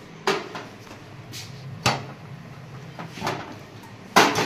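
Kitchen clatter of a stovetop sandwich toaster being handled over a gas burner: its metal plates and handles knocking, about five sharp knocks with the loudest near the end.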